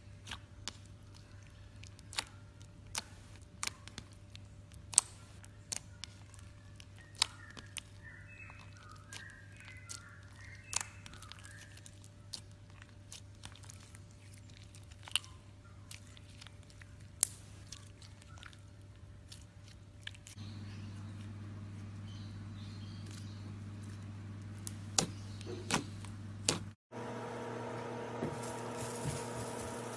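Slime being worked by hand, giving sharp irregular clicks and pops over a low steady hum. The background hum gets louder about two-thirds through, and after a brief break near the end a buzzing hum takes over.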